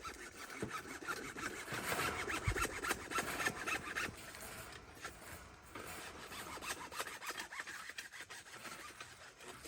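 Rough, repeated scraping of a hand tool through wet cement mortar, loudest in the first half.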